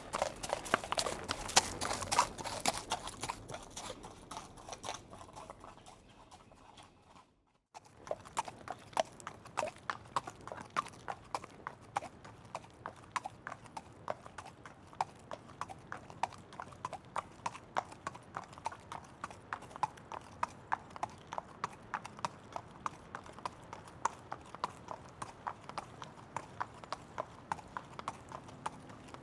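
Horse hooves clip-clopping. A louder, denser run of hoofbeats fades out over the first several seconds, then after a brief silent break a steady, even clip-clop of hoofbeats goes on.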